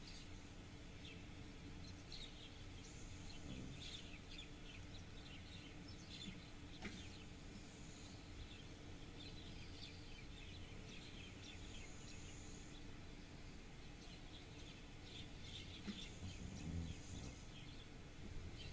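Small birds chirping over a steady low hum, with a brief low rumble near the end.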